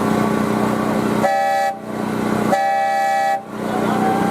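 Train horn sounding two blasts, a short one and then a longer one, each a chord of several tones. Under it the small diesel locomotive's engine runs steadily.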